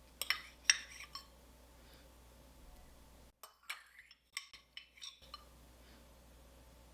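A kitchen utensil clinking against dishes: a few sharp clinks about a second in, then a second run of clinks around four to five seconds in.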